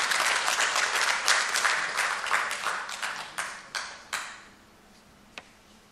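Audience applauding, many hands clapping, thinning out to a few last separate claps about four seconds in before stopping.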